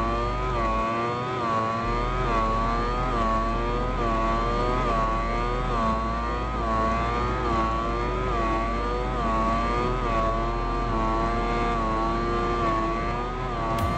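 Brushless electric motor and pusher propeller of a HobbyKing Bix3 RC plane whining steadily in flight, heard close up from the onboard camera. Its pitch wavers down and up about once a second.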